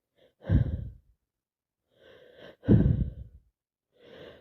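A woman with a heavy cold taking loud, gasping breaths: two strong breathy exhalations about two seconds apart, each with a quieter intake before it. This is the wind-up to a sneeze.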